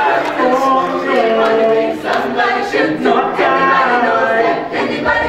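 Mixed choir of men and women singing a cappella in harmony, several voice parts at once, into microphones.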